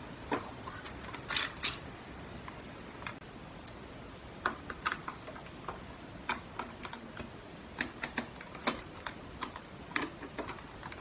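Small screwdriver driving screws into a plastic Elcaset cassette shell: irregular light clicks and ticks of tool and screws against the plastic, with a couple of louder clicks about a second and a half in.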